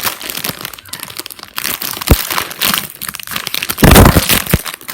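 Plastic wrapper of an instant noodle packet being torn open and crinkled in the hands. There is a sharp snap about two seconds in and the loudest crinkling about four seconds in.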